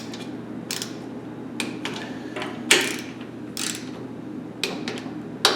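Socket wrench ratcheting in short bursts of clicks as bolts on a 6 HP Tecumseh snow-blower engine are tightened to a torque spec, the strokes coming at uneven intervals with one louder clack near the middle.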